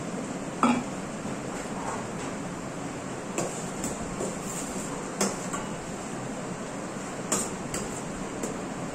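Metal kitchenware knocking on a stainless steel pan: a steel bowl tapped on the pan, then a metal ladle clinking and scraping as it stirs chopped onion in oil. About half a dozen sharp knocks, the first one the loudest.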